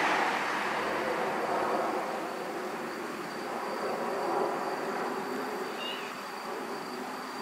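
A brief, faint cat meow about six seconds in, over steady outdoor background noise with a thin, high, steady tone.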